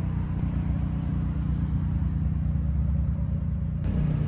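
Hyundai i30 N Performance's 2.0-litre turbocharged four-cylinder idling, a steady low rumble heard from inside the cabin.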